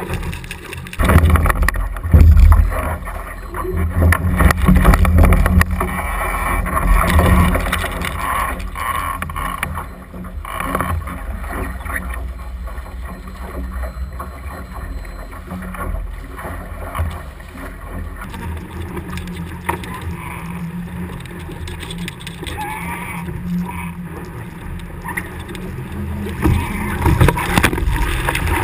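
Water rushing and splashing against a Laser Radial dinghy's hull as it sails fast through choppy waves, with wind buffeting the microphone. The heaviest gusts and splashes come in the first several seconds and again near the end.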